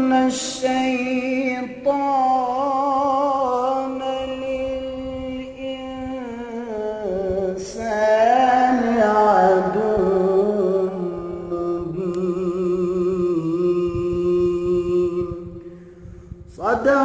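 A man's voice chanting a Quranic recitation in slow, drawn-out melodic phrases, holding long notes with a trembling pitch. A new phrase begins about halfway through, and another starts right at the end after a short pause.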